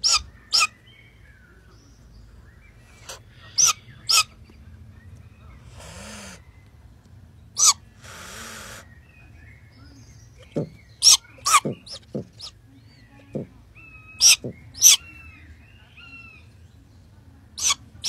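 Downy owlet calling in short, sharp, high-pitched cheeps, about a dozen in all, several in a quick run in the second half. Two breathy hisses, each about a second long, come near the middle.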